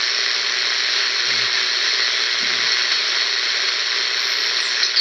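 BC-454B WWII command-set shortwave receiver hissing with steady band noise and static from its speaker as it is tuned across the 80-meter band near 3.6 MHz. Near the end a high whistle glides down in pitch.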